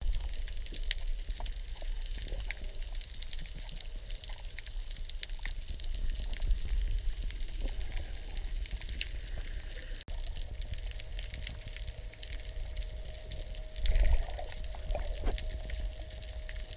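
Underwater sound heard through a camera's waterproof housing: a dull low rumble of moving water with many scattered sharp clicks and crackles and a faint steady hum. A louder rush of water comes near the end.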